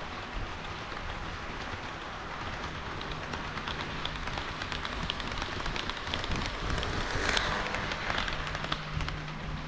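HO scale model train running on KATO Unitrack: a steady rushing of wheels on the rails with many sharp clicks over the track joints. It grows louder to a peak about seven seconds in as the train passes closest, under a faint low hum.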